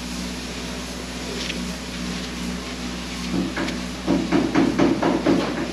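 Steady hum of running construction equipment. About three and a half seconds in, a fast, even clattering of metallic knocks joins it, about five a second.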